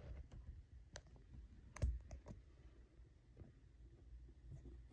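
A few faint, short clicks and light handling noise, the most distinct just before two seconds in.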